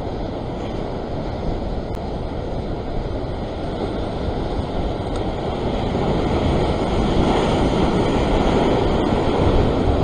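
Rough surf churning into white water, with wind buffeting the microphone; the wash swells louder over the last few seconds.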